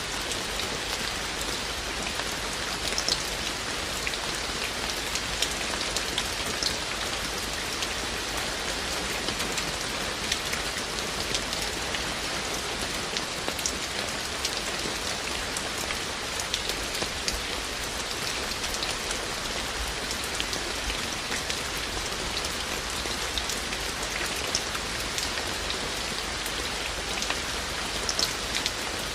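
Steady rain falling, a continuous hiss with many individual drops ticking sharply on nearby surfaces.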